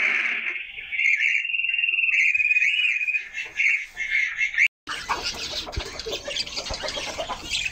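Birds chirping and calling in a backyard pigeon loft and aviary. The sound drops out briefly about five seconds in and comes back over a noisier background.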